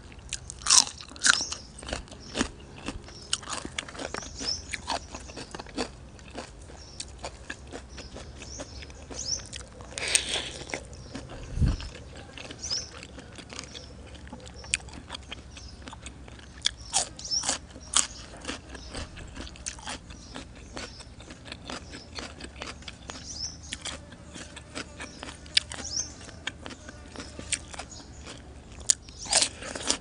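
Close-miked crunching and chewing of crisp raw vegetables and fresh herbs: sharp crunchy bites come every few seconds among steady chewing.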